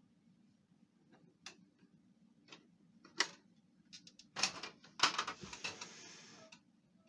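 Plastic clicks and clatter of a Pantum P2516 laser printer's top cover being unlatched and swung open. There are a few separate clicks, then a denser rattle and scrape lasting over a second near the end.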